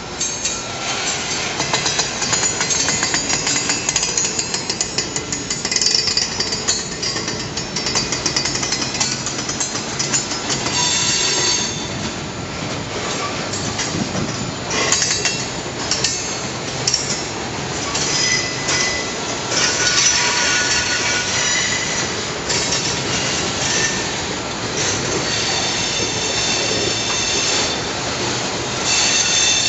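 Norfolk Southern freight train rolling past, its steel wheels clattering over the rails with bursts of high-pitched wheel squeal that come and go.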